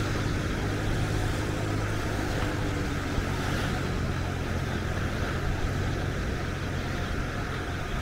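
Caspian Sea surf washing onto a sandy beach: a steady low rumble with a hiss of water over it.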